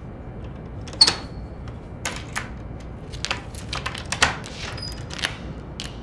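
Metal clicks and rattles of a door chain lock being handled at a front door: one sharp, ringing click about a second in, then a run of lighter clicks and rattles.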